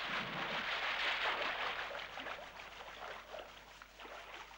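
Scuba diver splashing into the sea from the side of a boat, followed by churning, rushing water that fades away over a few seconds.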